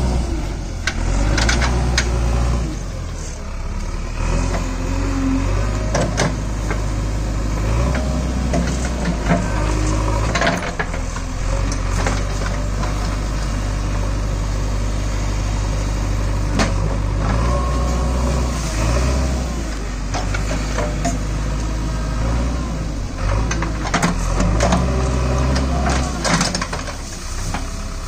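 JCB 3DX backhoe loader's diesel engine running under load, its pitch rising and falling in steps as the backhoe arm works, with scattered sharp knocks and clanks.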